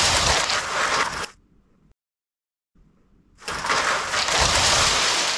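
Lego bricks crashing down and scattering in a dense, rushing clatter as a Lego model is demolished. The first crash dies away about a second in, and after a moment of dead silence the same crash starts again and swells: the clip is looped.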